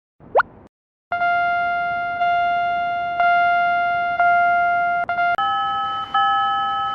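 A short rising glide, then an electronic railway crossing alarm bell ringing, a steady ding struck about once a second. About five seconds in it switches to a second crossing bell of a different, higher pitch that rings slightly faster.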